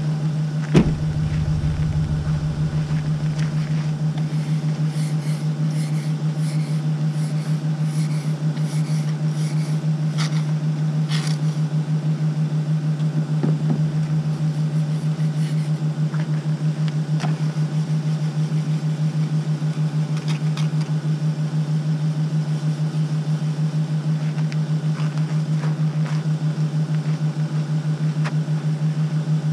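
Chevy Silverado pickup idling steadily in the cold after a remote start, with a low, even hum. A single sharp knock about a second in, likely the driver's door being shut, and a few light clicks and scrapes around ten seconds in.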